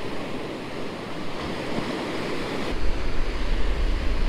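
Ocean surf washing on a sandy beach as a steady hiss of noise, with wind buffeting the microphone as a low rumble from about two-thirds of the way through.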